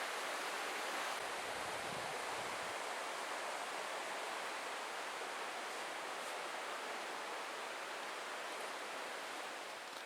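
The Little Miami River's water rushing steadily through the gorge, a constant even hiss of flowing stream that falls a little in level right at the end.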